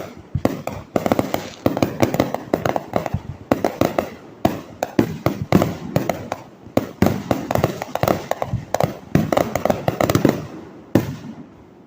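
Fireworks going off in dense, rapid succession: a continuous stream of sharp pops and bangs, ending with one last burst near the end.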